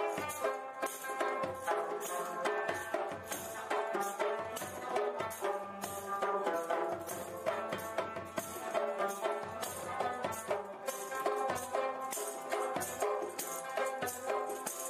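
Background music with a steady rhythm, carried by a shaker-like percussion beat.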